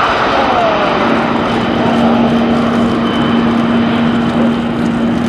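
Kawasaki P-1's four turbofan engines at take-off power as the jet climbs away, a loud, steady noise with slow sweeping changes in tone. A steady low hum joins in about a second in.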